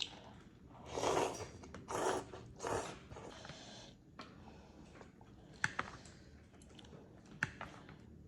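Close-up eating sounds: three short noisy bursts in the first few seconds, then quieter chewing with a few sharp clicks.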